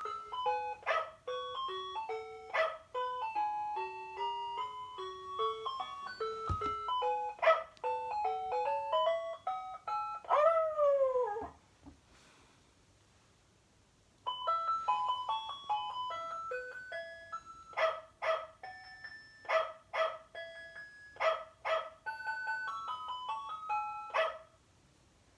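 Electronic toy sound chip from a 1997 Tyco Magic Lights Elmo and dog toy playing a beeping melody in short stepped notes. About ten seconds in there is a dog-bark sound. After a pause of about two seconds the melody starts again.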